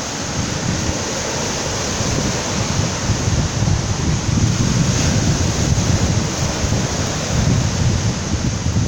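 Sea surf washing and breaking on the shore in a continuous rush, with wind buffeting the microphone as a low rumble.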